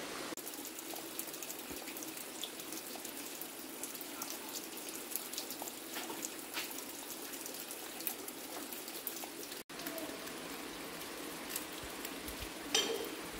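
Shallow stream water trickling and running over rocks, with scattered small splashes and clicks. A single sharp knock near the end.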